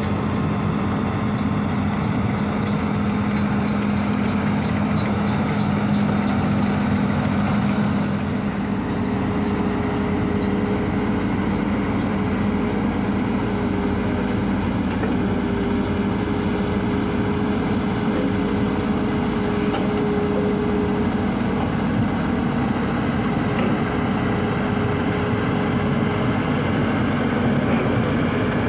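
Hydraulic excavators' diesel engines running steadily as they dig. About eight seconds in the sound shifts to a Hitachi ZX210 working close by, with a steady humming tone over the engine.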